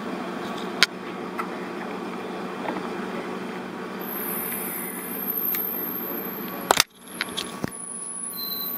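Steady low machine hum from workshop machinery around the CNC router, with a few sharp knocks and clicks as wooden clamping pieces are handled on the machine bed. The loudest knock comes about two thirds of the way through, followed by a short cluster of clicks, and a faint high whine comes and goes in the second half.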